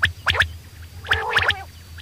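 Common quail calling: two quick bursts of sharp, clipped notes, about three notes in each, a second apart, over a faint steady low hum.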